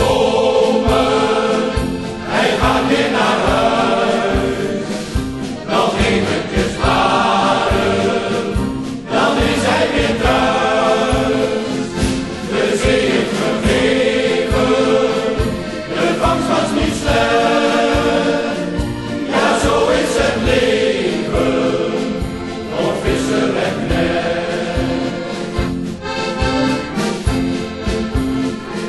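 Men's shanty choir singing a song in chorus over instrumental accompaniment with a steady beat.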